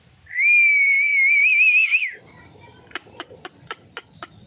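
A single sustained whistle held on one pitch for nearly two seconds, wavering near the end, followed by a steady run of sharp clicks about four a second.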